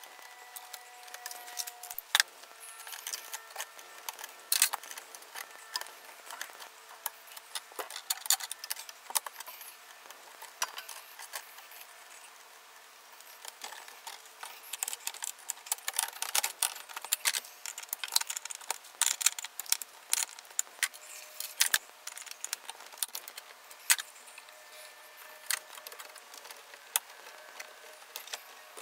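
Irregular metallic clicks, clinks and rattles of hand tools and stiff copper wires being worked inside a metal electrical sub panel, as bare ground wires are moved off the neutral bus onto a separate ground bar. The clicking comes thickest about halfway through.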